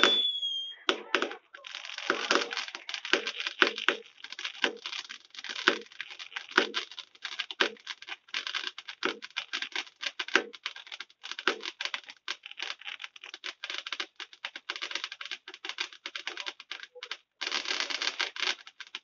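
Fireworks crackling and popping rapidly and irregularly, dozens of sharp reports a second. A short pause comes near the end, followed by a last dense burst that stops abruptly.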